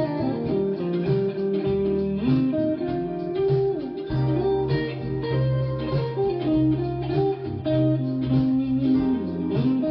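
Background music: a guitar instrumental with plucked and strummed notes over a bass line.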